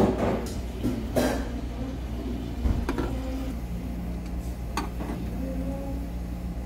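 Tableware clinking: a handful of separate knocks of cutlery against dishes, one ringing briefly a little under five seconds in, over a steady low room hum.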